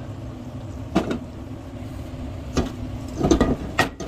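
Kitchen sounds by the stove: a steady low hum with four short knocks and clinks of kitchenware, one about a second in and three close together in the last second and a half.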